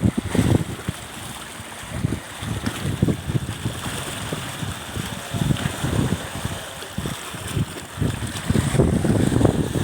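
Wind buffeting the microphone in irregular gusts, over a steady rushing hiss of wind and water.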